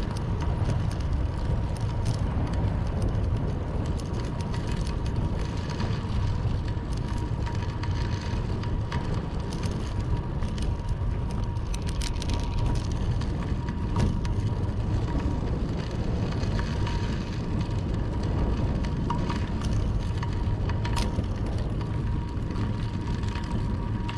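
Bicycle riding along a road: steady wind rumble on the microphone with tyre noise, a faint steady whine and occasional light clicks.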